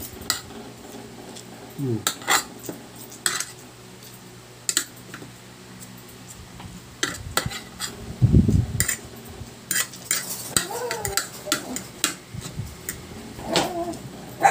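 Metal spoon and fork clinking and scraping against a ceramic plate while eating, in irregular sharp clicks. A louder dull thump comes about eight seconds in.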